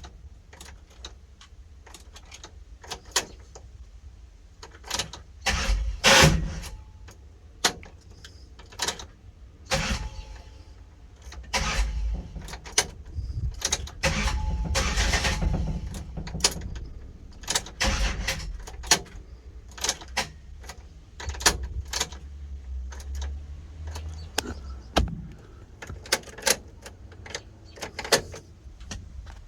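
Car engine being cranked in several attempts that do not catch into a steady run, a crank-no-start that the owner suspects comes from a bad ground wire. Sharp clicks and knocks fall between the attempts.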